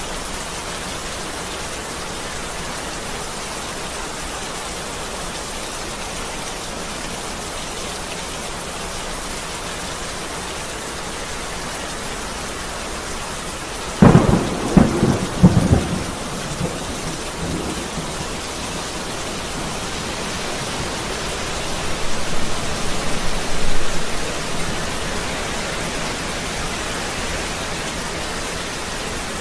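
Steady heavy rain, with a sudden loud thunderclap about halfway through that rumbles on for a couple of seconds, and a second rolling rumble of thunder a few seconds later.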